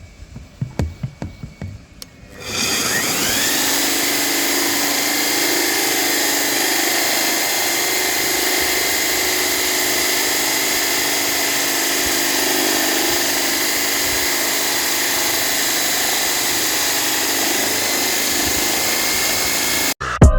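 Dongcheng Z1Z-FF-190 diamond core drill switched on about two seconds in, its motor whine rising as it spins up and then running steadily. It cuts off suddenly near the end. A few light knocks come before it starts.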